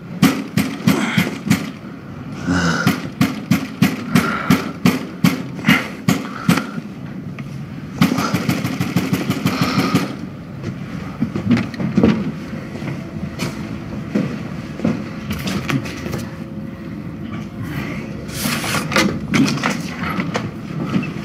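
Repeated loud knocking and banging on a door, in runs of several blows a second with a faster burst of pounding about halfway through.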